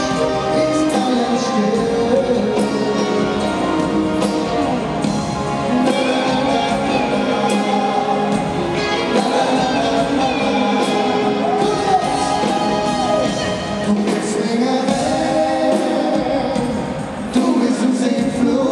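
Carnival sing-along song played loud in an arena, with a large crowd singing along.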